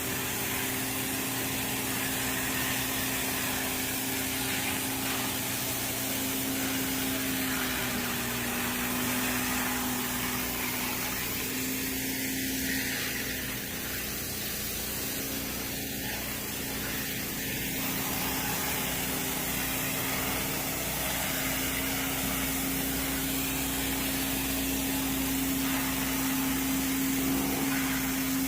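Pressure washer running steadily, its motor humming under the hiss of the high-pressure water spray.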